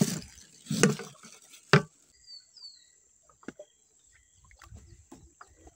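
Short rustling and knocking handling noises as the angler baits up in the wooden boat, with a couple of sharp clicks, two brief falling bird chirps about two and a half seconds in, and a faint steady high insect whine behind.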